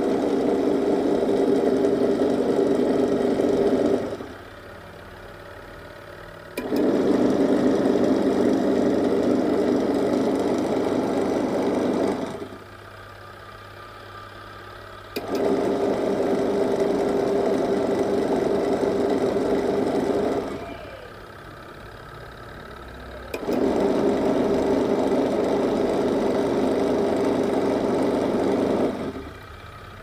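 Twin-tub washing machine wash motor humming as it drives the pulsator through a rubber belt. It runs in four spells of about five to six seconds with pauses of two to three seconds between, as the wash timer stops and reverses the motor each time.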